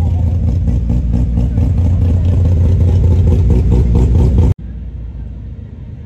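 Classic Japanese station wagon's engine and exhaust running close by, a loud, low, pulsing rumble that slowly grows louder. It cuts off abruptly about four and a half seconds in, leaving quieter street background.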